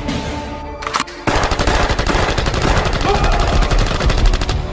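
A rapid burst of sharp cracks, like automatic gunfire, starting just over a second in and running several seconds without a break.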